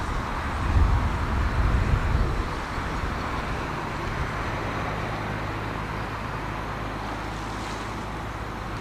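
Steady outdoor rushing noise, like distant traffic, with gusts of wind buffeting the microphone during the first two or three seconds.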